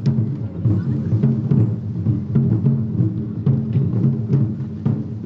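Music with a dense, rapid drumming beat over sustained low notes, with faint sharp cracks above it.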